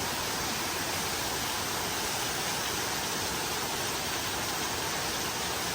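Steady rain, an even hiss with no separate drops or other events standing out.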